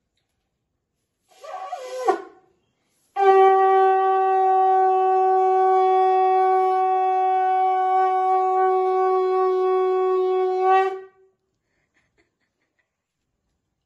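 Conch shell (shankha) blown: a short, wavering first blow about a second in, then one long, steady, loud note lasting about eight seconds that stops sharply.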